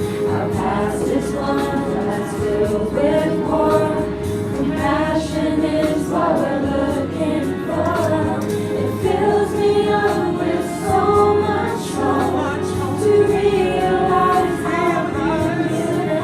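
Several voices singing a song together over a karaoke backing track, with sustained accompaniment and a steady bass beneath the voices.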